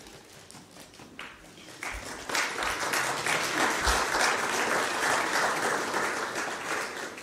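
A small congregation applauding: the clapping builds up over the first couple of seconds, holds steady, then dies away near the end.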